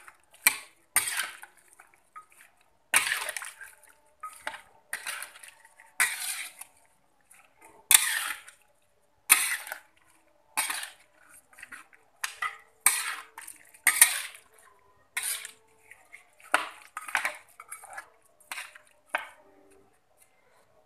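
Metal spatula scraping and scooping through chunks of meat in a coconut-milk curry in a metal wok, in short strokes about once a second.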